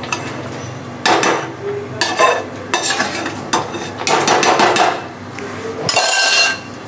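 A perforated metal spatula scraping and stirring wet grated-carrot halwa in a metal kadhai. It makes a run of scraping strokes about a second apart, and the loudest, ringing scrape comes near the end.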